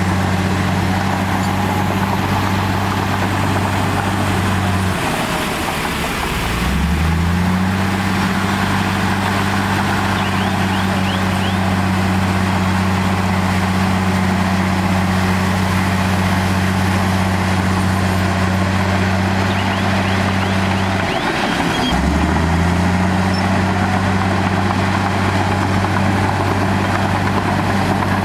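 Heavy earthmoving machine's diesel engine running steadily. Twice, about five and about twenty-one seconds in, its pitch dips and then climbs back up as the revs change.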